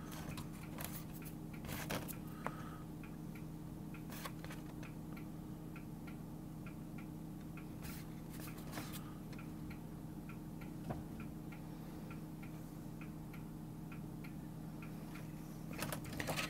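A few soft clicks and rustles from handling a disassembled computer keyboard's plastic contact membrane and key plate, over a faint, even ticking of about three a second and a low steady hum.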